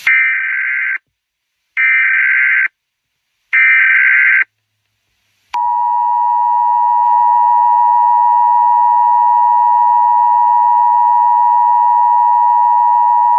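Emergency Alert System opening: three short bursts of digital data tones (the SAME header), each a little under a second long, then the EAS two-tone attention signal, which starts about five and a half seconds in and holds one steady, unchanging dual-pitch tone for about eight seconds.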